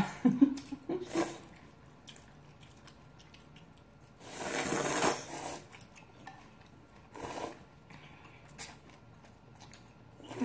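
Ramen noodles being slurped at close range: one long slurp about four seconds in, followed by a few shorter slurps and small mouth and chewing clicks.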